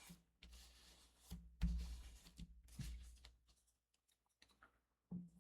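Paper and cardstock pieces being handled: faint rustling with scattered small taps and clicks, the loudest about one and a half seconds in.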